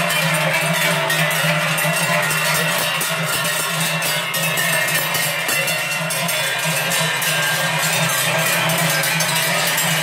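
Many cowbells clanging continuously and out of step as a herd of cows walks past, the clanging dense and loud throughout.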